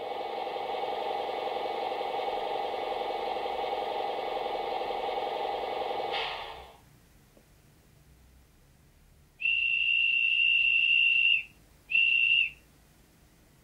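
Model-locomotive sound decoder playing a guard's whistle: one long, steady, high-pitched blast of about two seconds, then a short second blast. Before it, a different loud, steady, noisy sound runs for about six seconds and then fades out.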